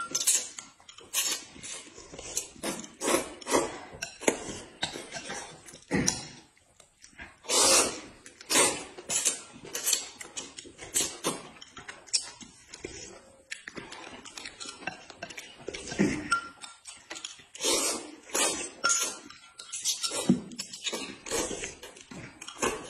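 Eating sounds close to the microphone: noodles slurped and chewed in a string of short, irregular slurps, with a metal spoon clinking against a glass cup now and then.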